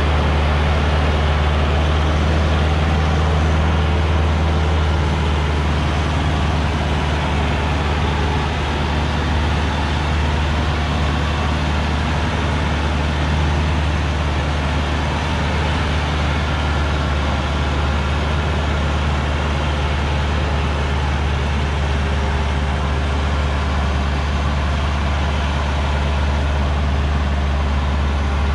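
Old Hoa Mai truck's diesel engine running steadily under load as the truck, loaded with acacia logs, climbs a dirt hill road, with a deep, even hum.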